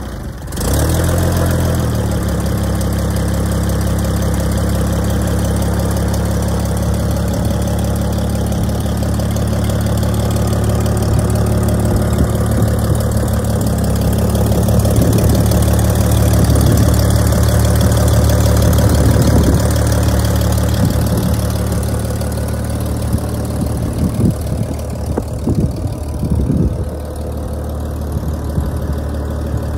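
Farmall 656 tractor's gasoline six-cylinder engine running steadily. A few irregular low bumps come in near the end.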